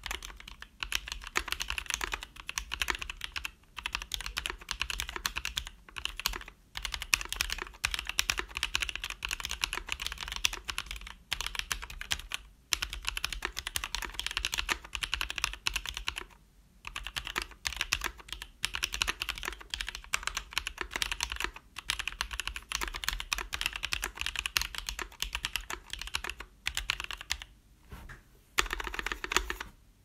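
Typing on a mechanical keyboard: a Drop Tokyo60 with lubed Novelkeys Cream linear switches and ABS keycaps. The keys clack in fast, continuous runs, broken by short pauses every few seconds.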